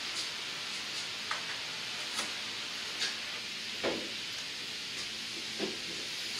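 A handful of light clicks and knocks as hands handle the metal valve plate and housing of a Hydra-Cell H25 pump, over a steady hiss.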